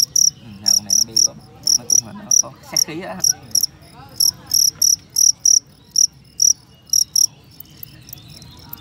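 A male fighting cricket chirping loudly: short, high chirps in small groups, about two to three a second. They stop about seven seconds in, leaving only faint quick ticks.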